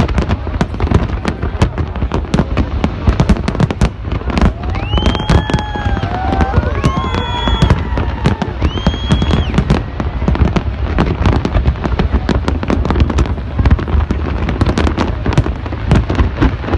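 Firecrackers going off in a rapid, continuous string of sharp bangs and crackles. Three high whistles rise, hold and fall in the middle of the string.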